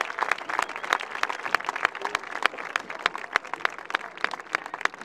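Audience applauding, with many sharp individual hand claps close by.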